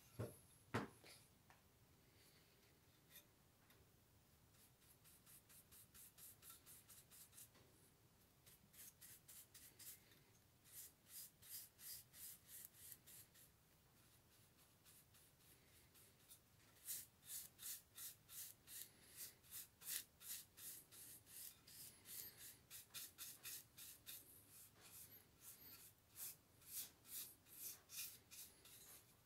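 Faint bristle strokes of a paintbrush brushing clear oil onto a bare wooden spirit level body, a soft scratchy swish about twice a second. Two light knocks sound in the first second.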